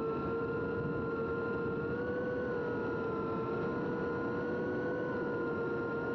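FPV cinewhoop drone's electric motors and ducted propellers running with a steady whine that rises slightly about two seconds in.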